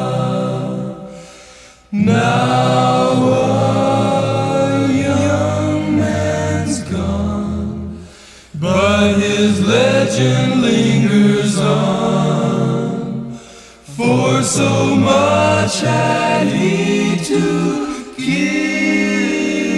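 A song with several singing voices, its phrases broken by short pauses every few seconds.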